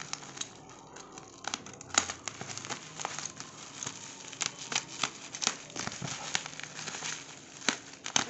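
Plastic bubble-wrap packaging crinkling and crackling as it is slit open with a utility knife and pulled apart by hand, with many irregular sharp crackles, the loudest about two seconds in.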